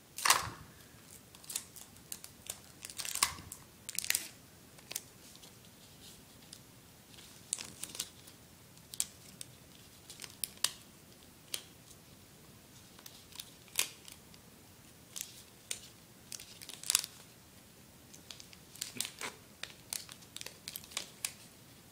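Clear adhesive tape being pulled off a desk tape dispenser and torn on its cutter, mixed with paper crinkling as the tape is pressed onto a folded paper boomerang. The sound is irregular short snaps and crackles.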